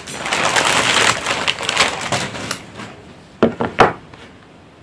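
Thin plastic shopping bag rustling and crinkling as it is grabbed and rummaged through, then two short knocks about three and a half seconds in as paperback manga volumes are handled.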